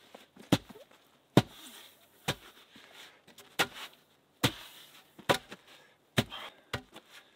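Wooden log post being rammed into the ground by hand, lifted and dropped again and again: about eight sharp thuds, a little under a second apart.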